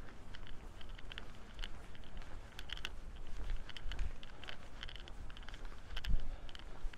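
Footsteps of a walker, a short crisp tap or crunch about two or three times a second, over low wind rumble on the microphone that swells briefly near the end.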